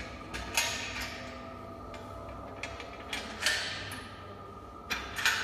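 Stainless-steel port cover on a mixing tank's lid being unclamped and opened by hand: a few sharp metal knocks and scrapes with a short ring, about half a second in, around three and a half seconds, and twice near the end. A faint steady tone runs underneath.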